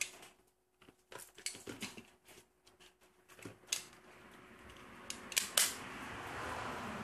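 Hard plastic clicks and knocks from a plastic outlet-box housing being handled and its two halves pressed together, with two sharp snaps about five and a half seconds in. A hiss grows in the background from about four seconds on.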